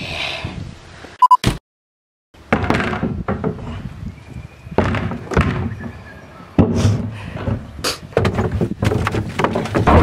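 Hollow thuds and knocks from a plastic wheelie bin being tipped over and banged about with a person stuck inside it, a quick run of irregular bangs.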